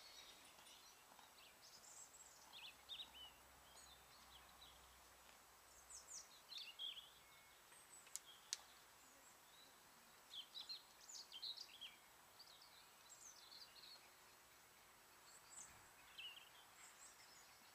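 Faint outdoor quiet with scattered songbird chirps and short calls throughout. Two small clicks come about eight seconds in.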